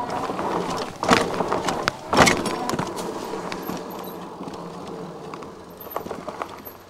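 Himiway Zebra electric bike ridden over a dirt trail: tyres on loose dirt and the bike rattling over bumps, with two loud clattering jolts about one and two seconds in.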